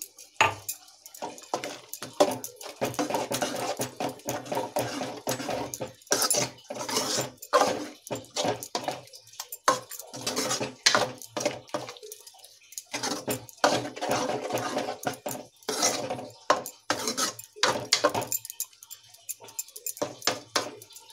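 Steel ladle stirring and scraping thick curry around a steel kadai, with repeated metal clinks and rasping scrapes in several long bouts that thin out near the end.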